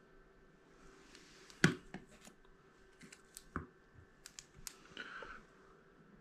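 Trading cards in hard plastic holders being handled and set down: a string of sharp clicks and taps, the loudest about a second and a half in, and a brief scraping slide near the end.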